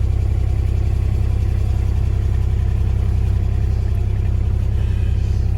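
A motor-vehicle engine running steadily at close range, a loud low rumble with a fast even pulse, starting suddenly at the beginning.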